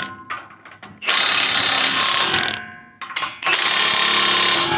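Power tool driving bolts to tighten the refitted bumper, running in bursts of about a second and a half with short pauses between them.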